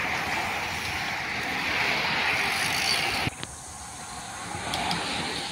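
A pack of road bicycles passing close, a steady hiss of tyres and drivetrains on concrete. About three seconds in it cuts off suddenly to a much quieter background.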